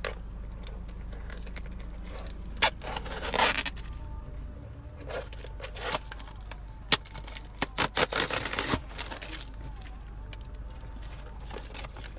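A sealed shipping package being torn open: ripping and scraping in several short bursts, with a few sharp clicks between them.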